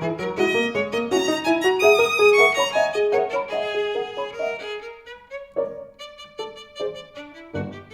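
Instrumental music: a quick, busy run of melodic notes that thins out after about five seconds into short, separate notes.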